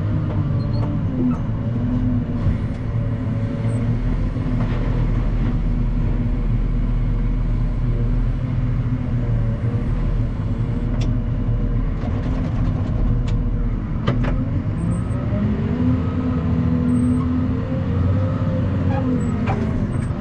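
Truck engine running under way, heard from inside the cab, its pitch wavering and rising about fifteen seconds in, with a few faint clicks.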